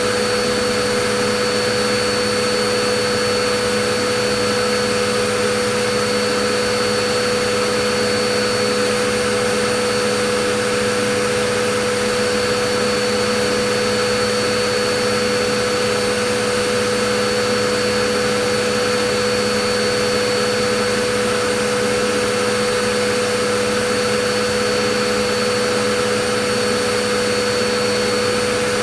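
Vacuum cleaner running steadily, a constant motor whine with a few fixed tones over airflow noise.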